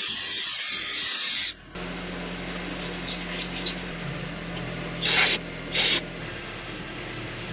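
Abrasive scrubbing on the metal wheel-bearing bore, cleaning the snap-ring groove after the old bearing has been pressed out. A bright hissing scrub runs for about the first second and a half, then cuts off. Quieter scrubbing follows, with two short, loud hisses a little after five seconds in.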